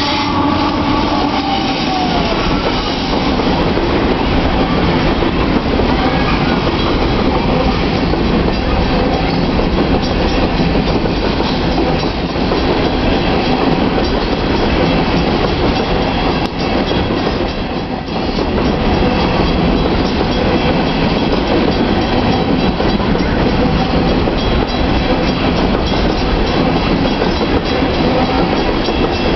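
Union Pacific freight train's hopper cars rolling past close by: a steady, loud rumble and clatter of steel wheels on the rails.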